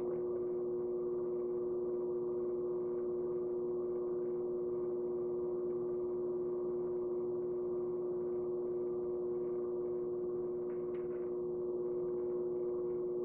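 Electric pottery wheel motor running steadily, a constant hum with one strong pitch and fainter tones above it, with faint rubbing of wet hands on the spinning clay.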